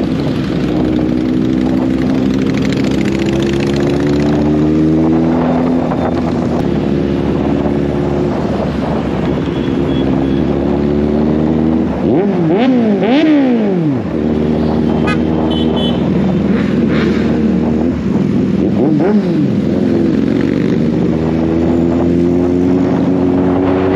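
Kawasaki Z800's inline-four engine under way, its pitch climbing steadily and dropping back at each gear change. About halfway through comes a quick run of sharp throttle blips rising and falling, with another short blip a few seconds later, over steady road and wind noise.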